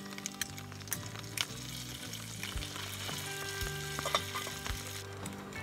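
Butter and morel mushrooms sizzling in a frying pan on a camp stove, with frequent small pops, as cooked angel hair pasta is poured in.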